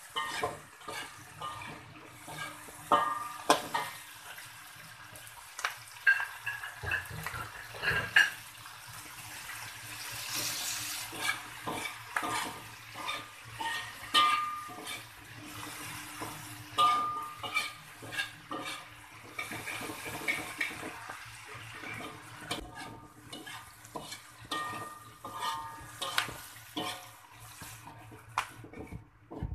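Slotted metal spatula scraping and knocking irregularly against a wok while stir-frying pea eggplants, chillies and anchovies, with some brief metallic ringing and a hiss of frying at times.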